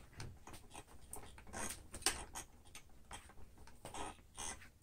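Light rustling and scraping as the Sanitaire SC899 upright vacuum's long power cord is unwound and dragged over a plastic drop sheet, with a few sharper clicks, the loudest about two seconds in.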